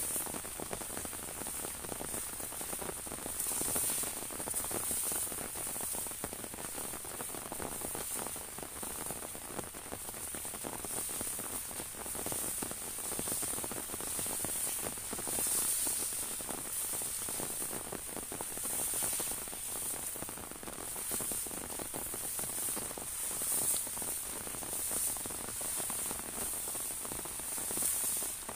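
Rain falling on an umbrella overhead: a dense, steady hiss of many small drop hits, swelling slightly about once a second.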